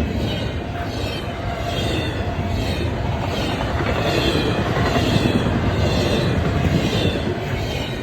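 Freight train rolling past: a steady rumble of rail cars, with a regular beat about once every 0.8 seconds as the wheels pass.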